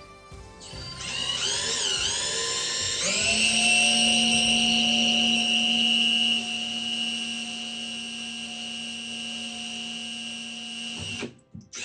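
DeWalt cordless drill drilling into a fiberglass shower surround: the motor whine rises in pitch in short spurts as the trigger is worked, then holds a steady pitch from about three seconds in. It gets quieter at about six seconds and stops shortly before the end.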